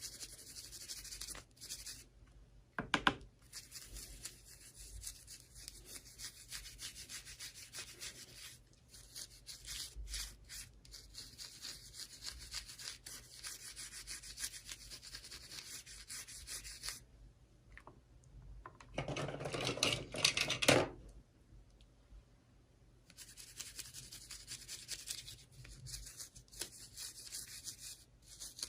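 Toy packaging being rubbed and handled in stretches of scratchy rubbing. There is a sharp knock about three seconds in, and a louder burst of handling about two-thirds of the way through.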